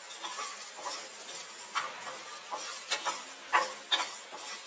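Coriander seeds being stirred and roasted in a little oil in a nonstick kadhai with a wooden spatula: a steady rustle and scrape of seeds across the pan with a light sizzle, and several sharper knocks of the spatula against the pan in the second half.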